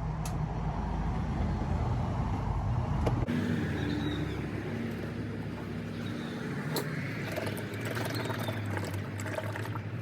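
Motor oil being poured from a quart bottle into the engine's oil filler opening, a steady gurgling pour. About three seconds in, the background changes abruptly, and there are a few short clicks.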